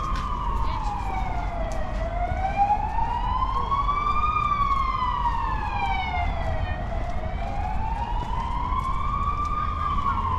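Emergency vehicle siren wailing, slowly rising and falling in pitch about every five seconds.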